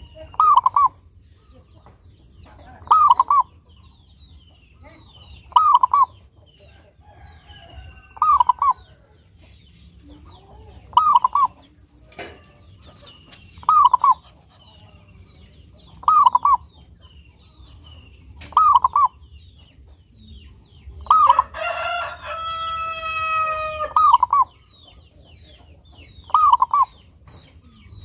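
A zebra dove (perkutut) cooing its short rolling phrase over and over, about every two and a half seconds. A rooster crows once, long and loud, about three quarters of the way through. Small birds chirp faintly in the background.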